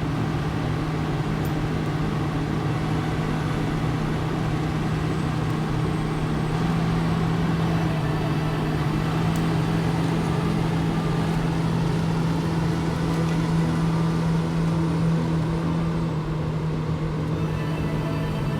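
An engine running at a steady speed, with a strong, unchanging low hum, easing off slightly near the end.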